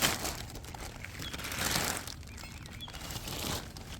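Bursts of rustling and crinkling as the new drilled brake rotors are handled, at the start, about a second and a half in and again near the end.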